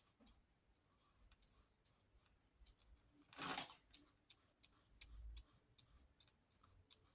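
Near silence with faint, scattered small ticks and one short rustle about three and a half seconds in.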